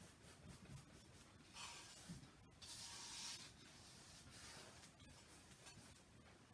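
Faint brushing of a paintbrush spreading acrylic paint across a canvas, with two longer strokes about two and three seconds in.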